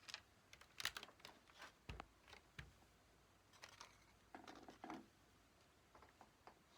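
Faint, scattered small clicks and light taps, a dozen or so at irregular intervals.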